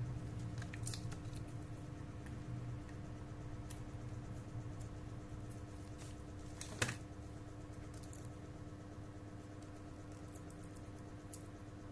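Light scattered clicks and taps, with one sharper click about seven seconds in, over a steady low hum.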